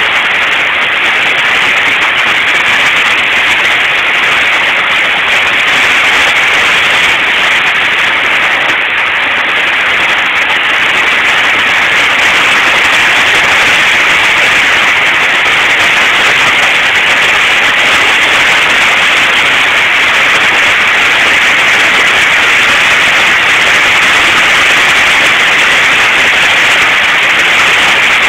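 Heavy rain hitting a covered patio roof: a loud, steady hiss with no let-up.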